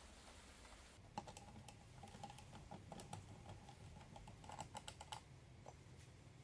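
Faint, irregular small clicks and light metallic clinks of metal parts and tools being handled on a workbench. They run from about a second in to about five seconds in, with some of the clinks ringing briefly.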